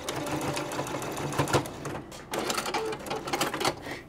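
Home electric sewing machine stitching a folded fabric strip: a fast steady chatter of the needle, in two runs with a brief stop about two seconds in.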